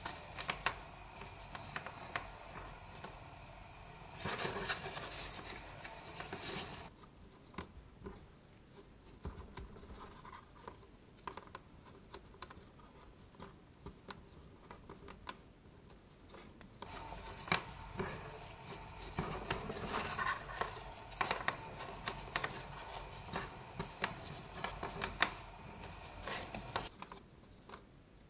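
Cardboard toilet-roll petals and thread rubbing and scratching as hands pull the thread tight and knot it, with small irregular clicks and rustles. A louder rasping stretch comes about four seconds in; the middle is quieter.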